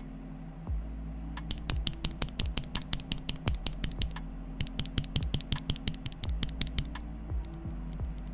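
Typing on a Tofu65 mechanical keyboard with a brass plate, Tangerine C3 linear switches and PBT keycaps: two runs of quick, sharp keystrokes, about six a second, with a short pause between.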